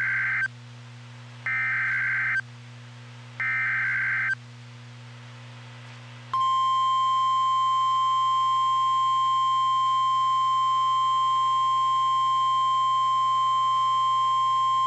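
NOAA Weather Radio emergency alert signal. First come the end of one digital SAME header data burst and two more bursts, each about a second long and two seconds apart. Then, about six seconds in, the steady 1050 Hz warning alarm tone sounds. It announces that a warning follows, here a tornado warning. A low hum from the radio runs underneath.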